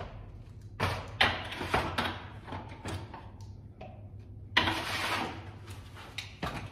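Hand tools being picked up and handled: a few short knocks and scrapes in the first three seconds, then a longer rustling clatter about four and a half seconds in.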